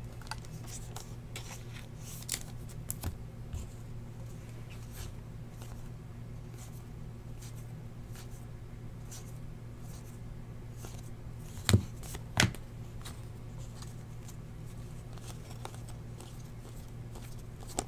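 Trading cards handled by hand, stiff card stock sliding and clicking against card stock as they are moved from one stack to the other, over a steady low hum. Two sharper clicks come about twelve seconds in.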